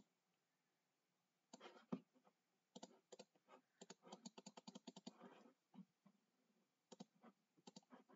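Faint clicking and tapping on a computer keyboard and mouse, in irregular quick runs.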